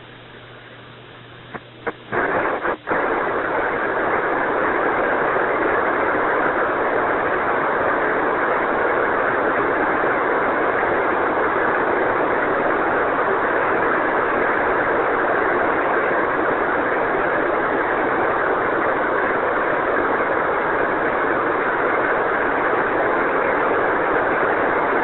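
Radio static on the Apollo air-to-ground voice loop: a few sharp clicks about two seconds in, then a loud, steady hiss with no voice on it. It is the sound of a weak or lost radio signal from the lunar module.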